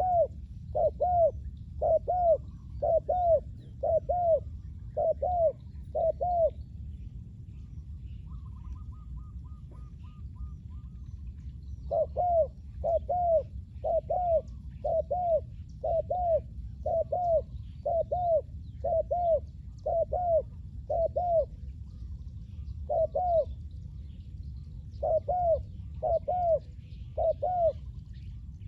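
Spotted dove cooing: a series of short, arched coo notes about two a second, breaking off for several seconds after the first run and then starting again. A faint trill from another bird comes in during the pause, over a steady low background rumble.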